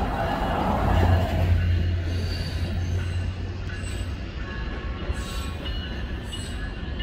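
Metra Electric bilevel electric commuter train rolling along the station tracks: a low rumble that swells about a second in and then eases, with thin high squealing from the wheels on the rails.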